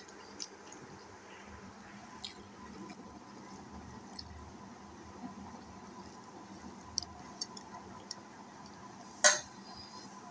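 Fingers mixing cooked rice with fried bitter gourd on a ceramic plate: faint squishing and scattered light clicks against the plate, with one sharp, louder knock about nine seconds in.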